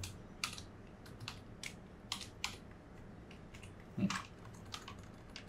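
Typing on a computer keyboard: irregular key clicks, a few a second, with a pause of about a second midway.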